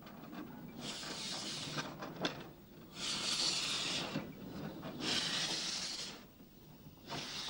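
Steam locomotive exhausting as it moves off slowly: four long hissing chuffs, each about a second long and about two seconds apart.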